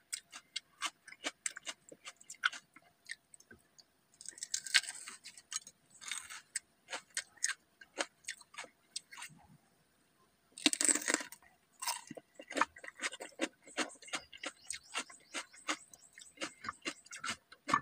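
Close-miked chewing of crunchy raw vegetables: a steady run of small crisp crunches and mouth clicks, several a second. There are a few short hissing breaths, the loudest about eleven seconds in.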